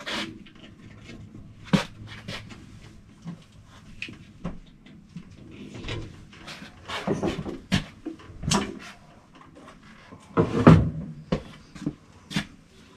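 Scattered clicks, clanks and knocks of hand tools and metal parts being handled while working on an air-conditioning coil's line connections, the loudest cluster about ten and a half seconds in.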